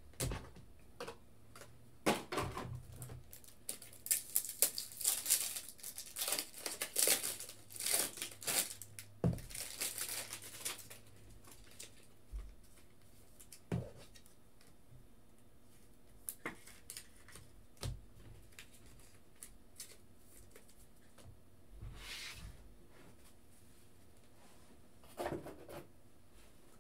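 Crinkling and tearing of trading-card packaging and plastic sleeves handled at a table, with small clicks and taps. It is busy for about the first ten seconds, then only now and then.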